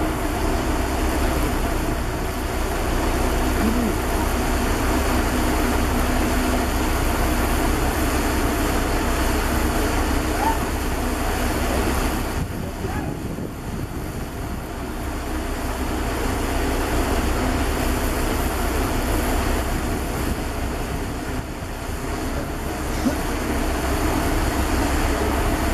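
Diesel engine of a truck-mounted mobile crane running steadily during a lift, a continuous low rumble that drops a little about halfway through.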